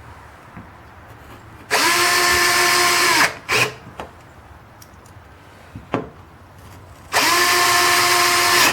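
Power drill running in two bursts of about a second and a half each, driving the door hinge's screws back in over the cardboard shim. A short blip and a couple of clicks come between the two runs.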